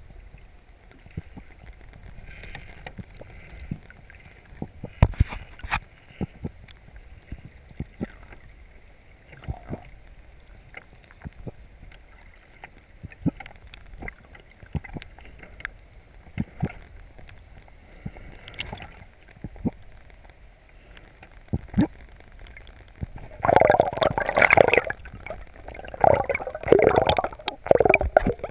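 Underwater sound beneath a small sailboat's hull: a low water murmur with scattered sharp knocks and clicks. Near the end it turns to loud splashing and gurgling as the camera reaches the surface.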